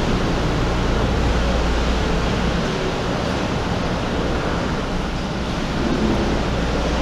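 Steady mechanical noise of a gondola terminal, with a constant low hum: the lift's drive machinery running and cabins moving through the station.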